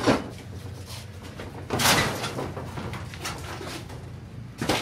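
Roof dismantling noises: a sharp knock at the start, a longer scraping clatter about two seconds in, and another knock near the end.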